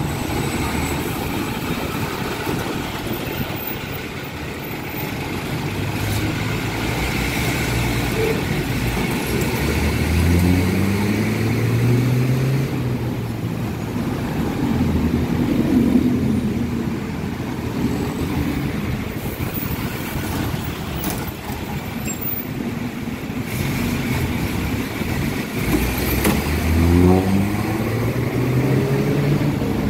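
Busy city road traffic passing close by: cars, pickups and buses, with a steady hiss of tyres and engines. Twice, about ten seconds in and again near the end, a vehicle's engine accelerates away, rising in pitch.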